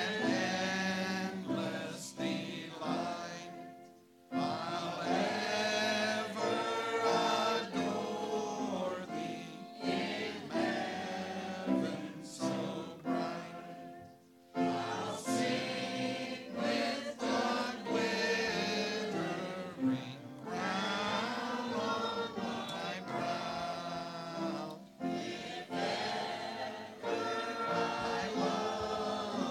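A group of voices singing a hymn in long phrases, with brief breaks about every ten seconds.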